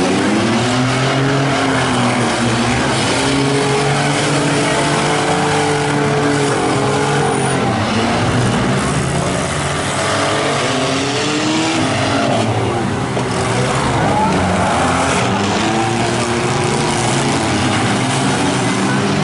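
Engines of several compact derby cars revving and running on a figure-8 track, overlapping pitches rising and falling as they accelerate, lift off and pass.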